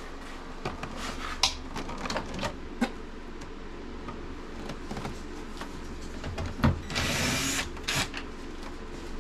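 Cordless drill-driver running in one short burst near the end, taking out the screw at the inside door handle of a truck door panel. Scattered clicks and taps of plastic door trim being handled come before it.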